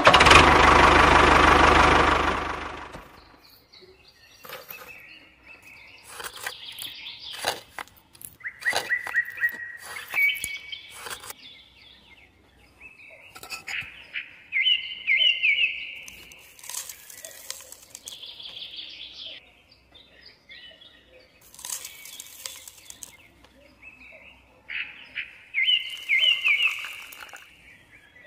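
Birds chirping on and off in short, high, gliding calls. They follow a loud, noisy burst that lasts about the first two and a half seconds.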